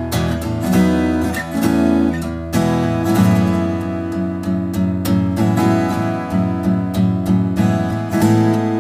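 Background music led by strummed acoustic guitar, with a bass line under a steady rhythm.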